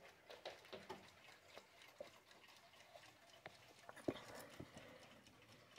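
Faint, irregular clicks and soft knocks, with the loudest knock about four seconds in.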